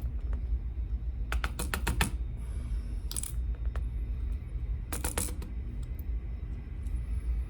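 Small metal lock parts clicking and tapping as a Mul-T-Lock Junior is taken apart and its pins removed, in two quick clusters of clicks: one about a second in, another about five seconds in.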